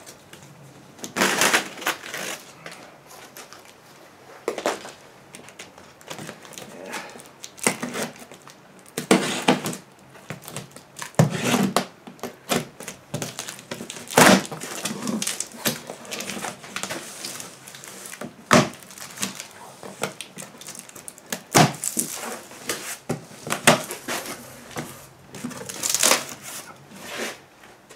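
Unboxing a cardboard carton: plastic packing straps pulled off, then the packing tape slit with a small blade and the cardboard flaps opened. It comes through as irregular rustling, scraping and crinkling with sharp clicks.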